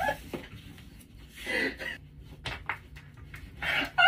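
A person's breathy gasps and soft vocal sounds, with a few faint clicks in between.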